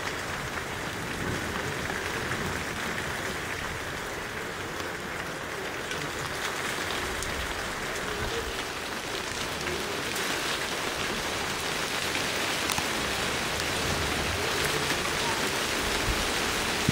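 Rain falling, a steady patter of drops that picks up about ten seconds in as the storm arrives.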